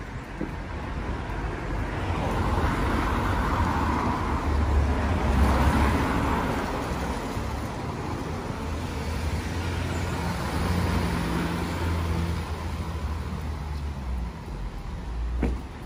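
Road traffic: vehicles passing by, the noise swelling and fading, loudest about five seconds in and again near eleven seconds.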